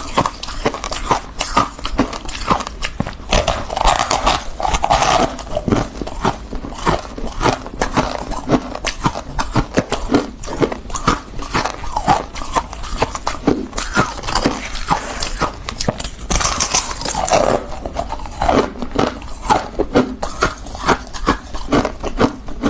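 Refrozen freezer frost being bitten and chewed: a dense, unbroken run of crisp crackling crunches.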